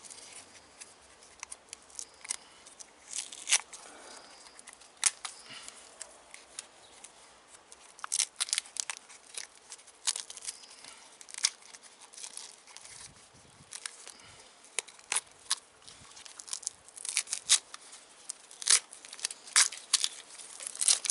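Blue tape being peeled and unwound off a taped-up wiring bundle, giving short crackling rips at irregular intervals.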